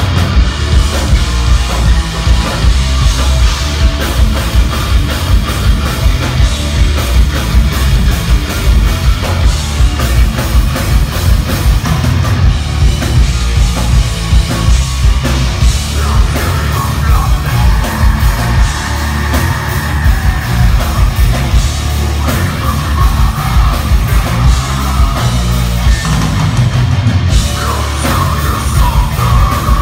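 Heavy metal band playing live at high volume: electric guitar, bass and a drum kit. A voice sings over the band in the second half.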